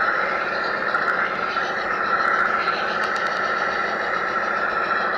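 G scale model train running along the track, heard close up from on board: a steady motor and gear whine with wheel-on-rail noise, its pitch drifting slightly, and a few faint clicks.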